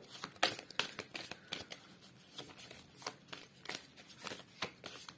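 A deck of divination cards being shuffled by hand: soft, irregular card snaps and flicks, about two or three a second.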